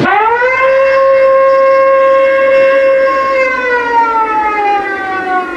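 Wailing alarm siren: its pitch rises quickly, holds steady for about three seconds, then slides slowly down toward the end.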